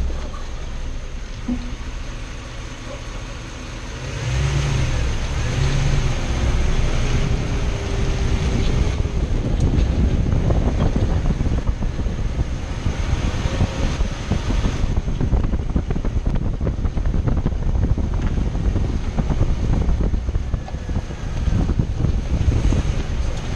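A 2006 Toyota Tundra pickup running, with a steady low rumble. A faint wavering tone comes and goes between about four and nine seconds in.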